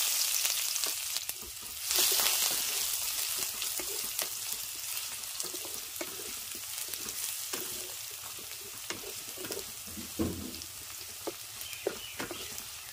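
Chopped onions sizzling in hot mustard oil in a kadai, stirred with a wooden spatula that taps and scrapes against the pan. The sizzle flares up about two seconds in, then gradually quietens as the onions fry.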